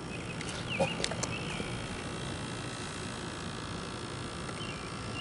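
Short warbling bird chirps over a steady hiss of rain, with a couple of small clicks about a second in.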